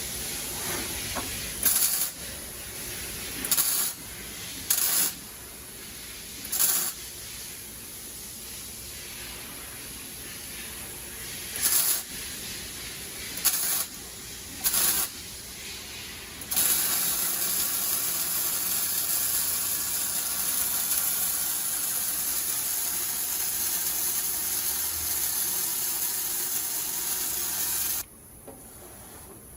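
Automatic torque converter welding stand at work: several short hisses, then a steady hiss lasting about eleven seconds that cuts off suddenly near the end.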